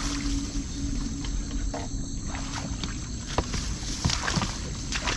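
Insects chirping steadily in the grass, with rustling and a few sharp clicks and knocks about three to four seconds in as a fish trap is set back in place.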